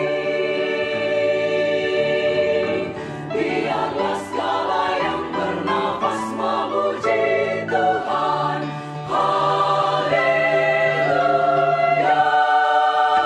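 Women's choir singing in several parts, holding sustained chords that move from note to note.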